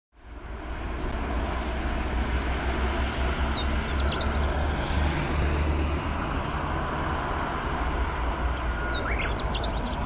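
Chestnut-eared bunting singing: two short, quick phrases of high chirping notes, one a few seconds in and another near the end, over a steady low rumble and hiss.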